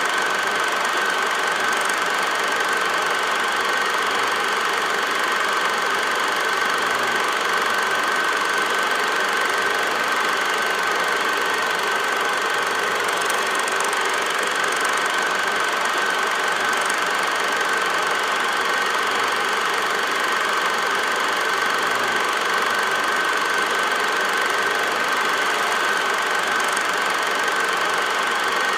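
Steady whirring clatter of a running 8mm film projector, with a constant thin whine above it.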